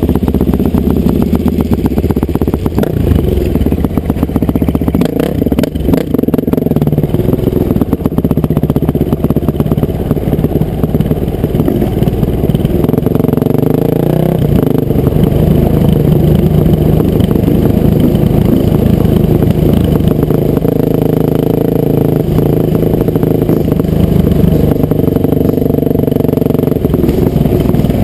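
Honda CR500 two-stroke single-cylinder motocross bike running loud under riding, its engine note rising and falling as the throttle is opened and closed.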